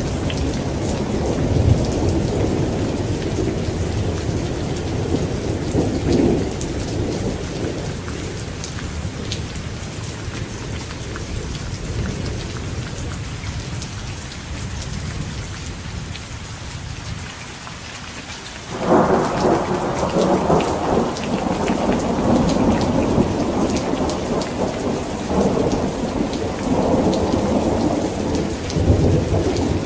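Thunderstorm: steady rain hissing throughout, with rolling thunder. A long rumble dies away over the first half, then a new peal breaks suddenly about two-thirds of the way in and keeps rolling.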